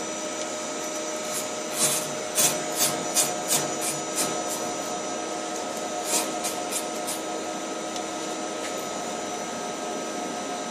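Biglia B301 CNC lathe running with a steady hum and several steady tones, its spindle turning. Between about two and seven seconds in comes an irregular run of about a dozen short, high, scratchy ticks as the turning tool is inched up by handwheel to just graze the face of the spinning part for tool touch-off.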